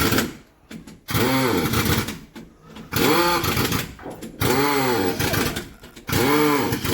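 Newly fitted crown wheel and pinion of a Force Tempo Traveller rear differential spun by hand, giving four whirring bursts of about a second each whose pitch rises and then falls as the gears speed up and run down. It turns freely with no tightness.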